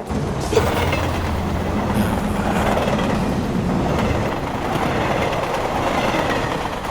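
Loud, steady rumbling noise with a low hum underneath, starting abruptly and holding level throughout.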